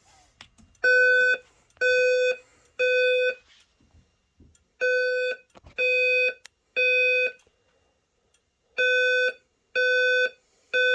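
Simplex voice-evacuation fire alarm speakers sounding the temporal-3 evacuation tone: a low, buzzy beep repeated three times, then a pause, the set of three heard three times. This is the alarm signal set off by the pulled pull station, and it comes before the spoken evacuation message.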